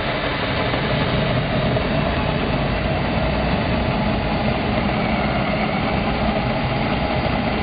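Cordless drill running steadily under load as a carbide-tipped Kunstbohrer (a machine bit with no cutting rim around its edge) bores freehand into solid wood.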